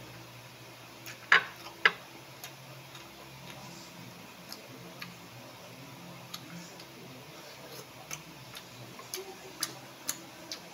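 Close-up eating sounds of a man eating steamed okra with his fingers: scattered sharp clicks and smacks from chewing and lips, the two loudest about a second and two seconds in, over a faint steady low hum.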